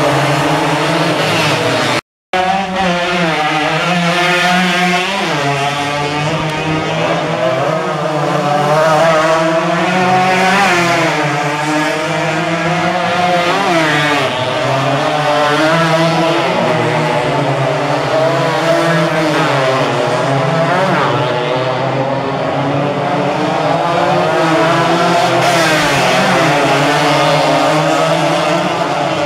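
Racing motorcycle engines revving hard and passing close by, their pitch sweeping up and down again and again. The sound cuts out for a split second about two seconds in.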